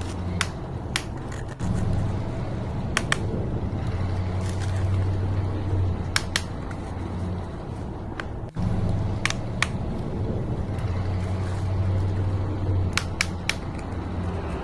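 Small RC truck motor and gearing running with a steady low hum, broken by sharp mechanical clicks, often in pairs, every few seconds.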